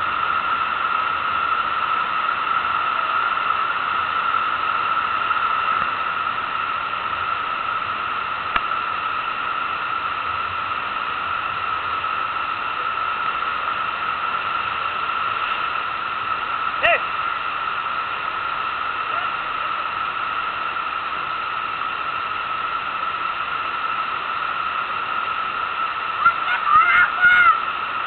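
Steady rushing of pumped water over a FlowRider standing-wave ride, a continuous roar of spray and surf. Near the end a voice calls out a few times.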